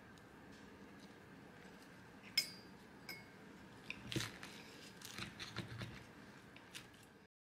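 Kitchen knife cutting through a crisp pan-fried celery-leaf pancake: faint crunching, with a few sharp taps of the blade on the plate, one or two with a brief ring.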